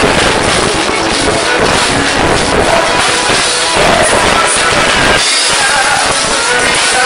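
Live forró band music: accordion, drum kit and hand percussion playing together, loud and dense. The bass drops out briefly about five seconds in.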